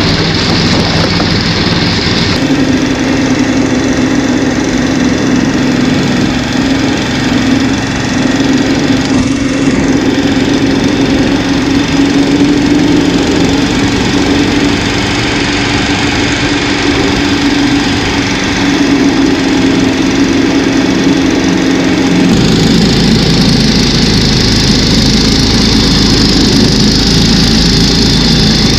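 Snow Dog tracked snow machine's small engine running steadily under load while it pulls a loaded sled over snow. Its tone shifts about two seconds in and again near the end, turning rougher with more hiss.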